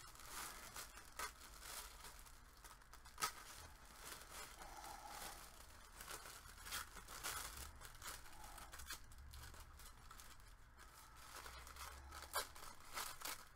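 Thin tissue sewing-pattern paper rustling and tearing as it is pulled apart by hand, with scattered crinkles and a sharp snap about three seconds in.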